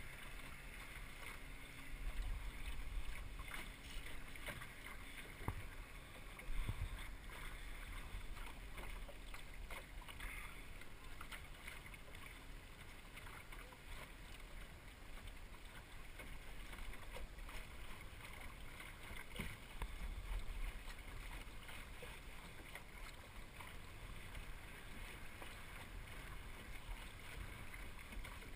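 El Toro sailing dinghy under way: water swishing and lapping along the hull with a low, gusting wind rumble, and a couple of brief knocks a few seconds in.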